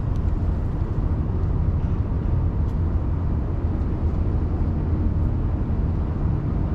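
Steady low rumble of outdoor street noise, strongest in the deep bass and even throughout, with a couple of faint ticks.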